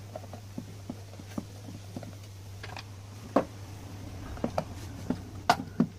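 Light clicks and taps of hands handling a car amplifier's metal case and its screws, scattered and irregular, with a sharper knock about three and a half seconds in and another about five and a half seconds in, over a steady low hum.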